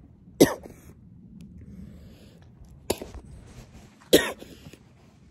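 A man coughing three times: short, sharp coughs spaced a second or more apart, the first and last the loudest.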